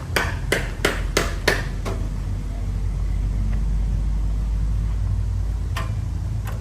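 A run of sharp knocks, about three a second, for the first two seconds, then a steady low rumble with one more knock near the end.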